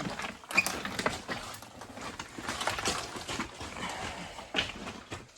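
Footsteps scuffing and crunching on loose rock, a rapid irregular run of clicks and scrapes, with faint indistinct voices.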